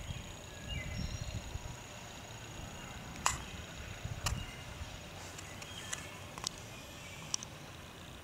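Quiet outdoor ambience with a faint steady high hiss, a few brief high chirps in the first second or so, and a handful of sharp clicks scattered through the middle; no barking.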